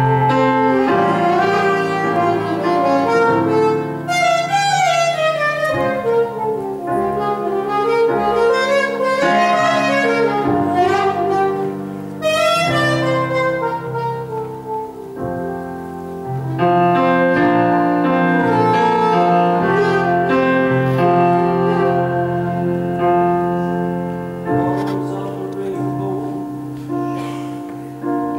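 Live saxophone solo over piano accompaniment, the saxophone bending and sliding between notes.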